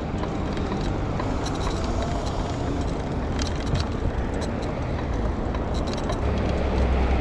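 Steady low vehicle rumble, growing a little louder near the end, with light clicks and taps scattered through it.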